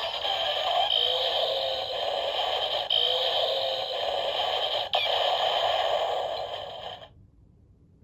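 Electronic sound effects from a Zero-One Driver toy belt's speaker playing Rampage Gatling audio: a steady, dense, hissing effect with faint gliding tones and a small click about every two seconds, cutting off abruptly about seven seconds in.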